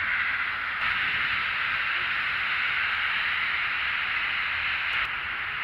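Heavy rain falling steadily, a constant hiss of downpour. There is a faint click about five seconds in.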